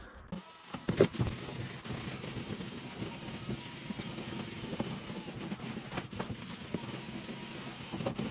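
A steady low machine hum with a few scattered knocks and rustles, the loudest about a second in.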